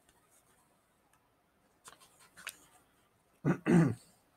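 A man clears his throat in two short, loud bursts near the end, after a few faint rustles.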